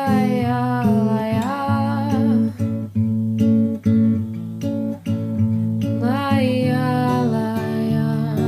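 Music: strummed acoustic guitar chords with a wordless, gliding melody line over them. The melody drops out for about three seconds in the middle, leaving the guitar alone.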